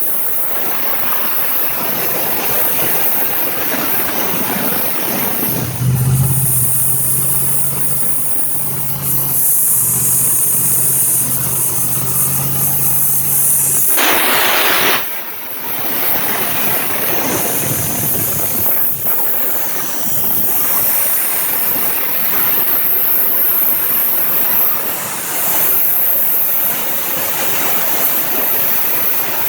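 302 V8 engine of a homemade air compressor running steadily with its clutch fan turning. About halfway through there is a brief loud rush of noise.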